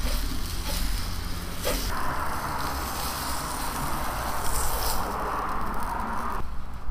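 An egg sizzling on a porcelain-coated cast iron griddle plate, with a few spatula scrapes and taps against the griddle in the first two seconds. The sizzle swells about two seconds in and cuts off shortly before the end as the egg is lifted off the plate, over a steady low rumble.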